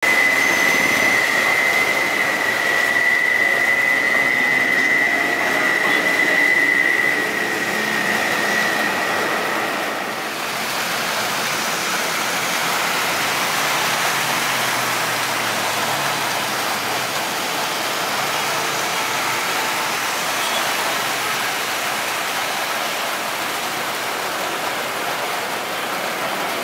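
Jet engines at takeoff power on a rain-soaked runway. For about the first ten seconds an Airbus A330's engines run with a steady high whine over their roar. Then the whine stops and a broad, even roar follows as an Airbus A320 accelerates down the runway and lifts off.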